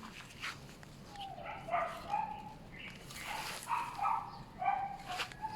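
A dog giving a series of short, high yelping calls, several in a row over a few seconds.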